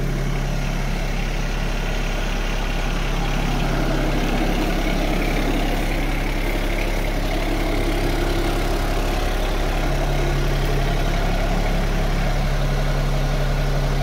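Yanmar SA324 compact tractor's three-cylinder diesel engine idling steadily.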